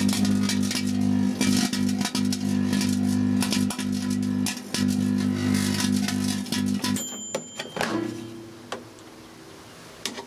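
Microwave oven running on high with a loud buzzing mains hum from its magnetron and transformer, overlaid with rapid crackling of plasma arcing around capacitors inside. The hum and crackling stop about seven seconds in as the oven is switched off, followed by a few short high beeps.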